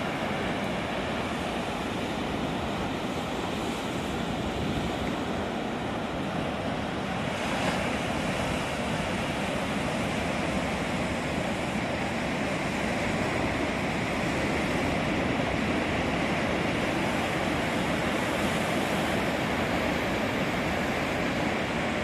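Heavy Atlantic surf breaking over rocks and washing up a beach: a continuous rush of waves that swells a little louder after the midpoint.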